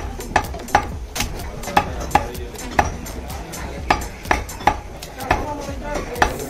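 Butcher's cleaver chopping goat meat and bone on a wooden log chopping block, sharp chops about twice a second in an uneven rhythm.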